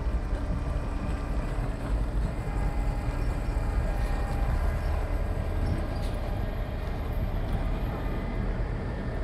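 Engine of a Terex Stinger BT4700 boom truck running steadily, a low even rumble.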